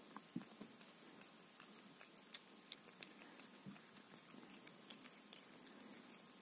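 Cat eating wet pâté from a foil tray: faint, irregular smacking and licking clicks as it laps and chews.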